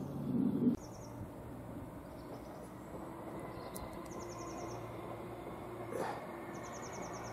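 Outdoor ambience: after a short low noise in the first second, short high buzzy chirps recur every second or two over a faint steady low hum.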